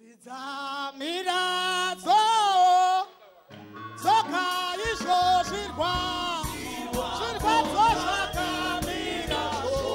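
A woman's lead voice sings a gospel song in Shona, at first freely with held, bending notes over a low sustained note. After a short break about three seconds in, she sings on, and drums and bass come in about five seconds in with a steady beat under her.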